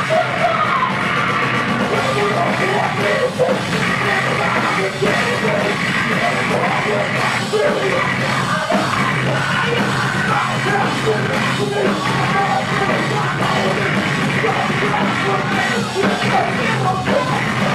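Heavy metal band playing live, with a woman yelling and singing into the microphone over drums and guitars.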